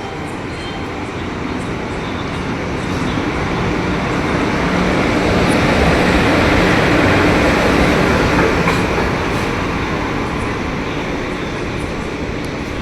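Express train with ICF passenger coaches rolling past on the station track. Its rumble swells to a peak about halfway through and then eases off, with the wheels clicking over the rails.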